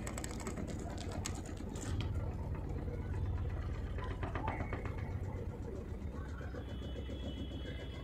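Godrej 6.2 kg top-load fully automatic washing machine in its spin cycle, the motor turning the drum fast with a steady low hum. A thin high whine joins in near the end.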